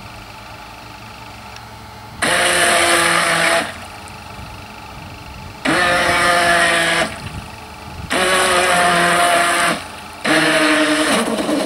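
Radio-controlled speedboat's motor opened up in four short bursts of about a second and a half each, a steady whine with a hiss, dropping away between bursts.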